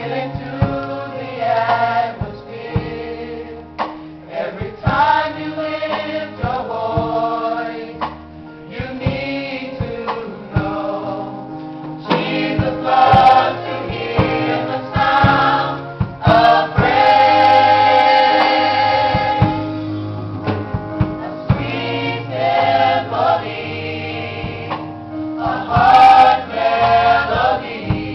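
Gospel choir singing with band accompaniment: bass notes and drum hits under the voices, with a long, loud held chord just past the middle.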